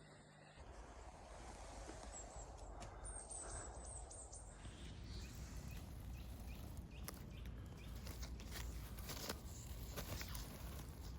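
Faint steady rumble, like wind on the microphone, with scattered light taps and rustling.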